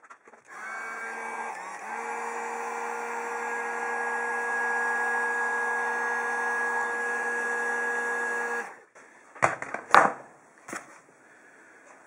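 Heat gun running steadily, a fan whine and rush of hot air, while it shrinks black heat-shrink tubing over a crimped copper-rod joint; it starts about half a second in and cuts off suddenly about three-quarters of the way through. A few sharp knocks follow.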